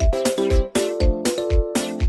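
Background music with a steady beat: a kick drum about twice a second under sharp percussion hits and sustained synth chords.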